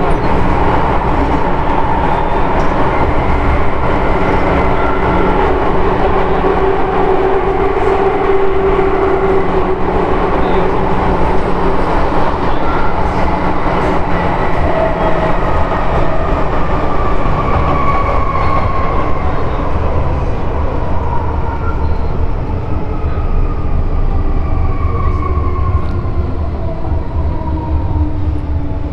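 MTR M-train electric multiple unit running, with steady running rumble and the whine of its traction motors. The whine falls steadily in pitch through the second half as the train slows.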